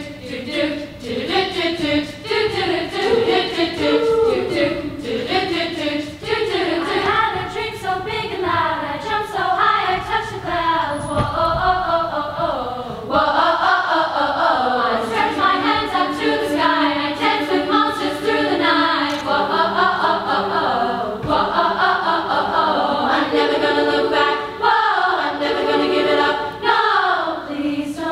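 Women's choir singing in several parts without accompaniment, growing fuller and louder about thirteen seconds in.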